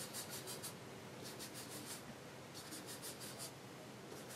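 Felt-tip marker scribbling on paper, faint: three short runs of quick up-and-down strokes, each run shading in one column of a paper square.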